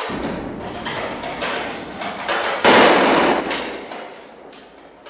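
Rifle fire: a quick, uneven run of shots, then much louder gunfire close by about two and a half seconds in that rings out and fades over about a second.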